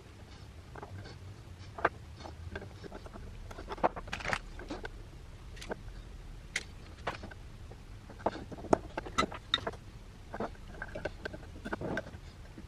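Irregular small clicks, taps and light scrapes of hand tools and wire connectors being handled on a circuit board, over a faint steady low hum.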